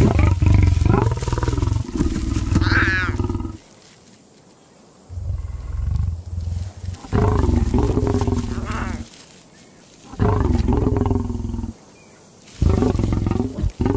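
Male lion growling in four low, gruff bouts of one to four seconds each, with short pauses between them.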